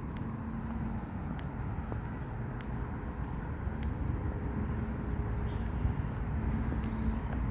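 Outdoor ambience while walking: a steady low rumble, with faint, evenly spaced footsteps about once a second.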